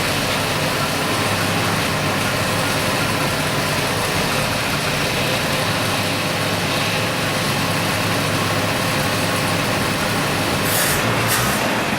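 GAZ Volga's four-cylinder carburetted engine running steadily on LPG while its gas supply is being adjusted. A run of short sharp clicks comes in near the end.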